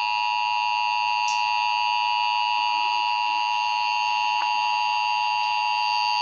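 Emergency Alert System attention signal: a steady, unbroken two-tone electronic tone that announces an emergency alert broadcast.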